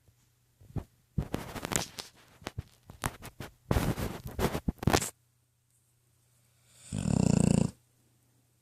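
Pitbull asleep and dreaming: a few seconds of irregular scratchy rustling, then a single snore lasting under a second, about seven seconds in.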